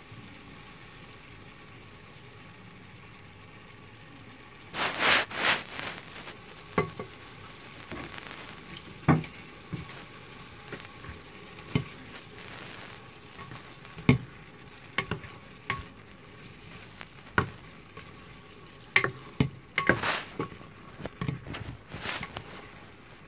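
Black plastic spatula stirring and tossing rice noodles in a stainless steel pan, with irregular scrapes and knocks against the pan from about five seconds in, over a low steady hiss from the cooking food.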